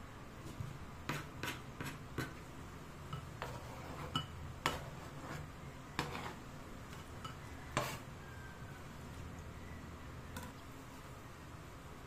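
Kitchen knife tapping and clicking irregularly on a plastic cutting board as raw chicken is diced, then scraping the diced chicken off the board into a ceramic dish, with a few sharper knocks of knife and board against the dish.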